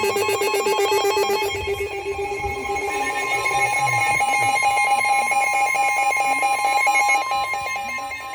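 Emergency Alert System warning alarm tone from NOAA Weather Radio: a steady tone of about 1050 Hz, layered with a rapidly pulsing electronic alert warble that is strongest in the first few seconds. It signals that a weather warning is about to be read.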